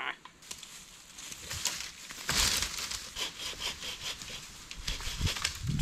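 Wooden-framed bow saw cutting a small tree near its base, in a run of rasping strokes that grow louder after about two seconds.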